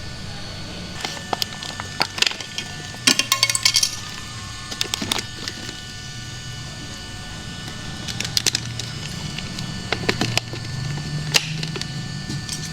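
Radio-controlled model bulldozer running: a steady low motor hum with scattered clicks and knocks, and a brief clattering rattle about three seconds in.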